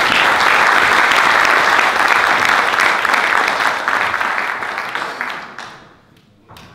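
Audience applauding, a dense patter of many hands that fades away about five to six seconds in.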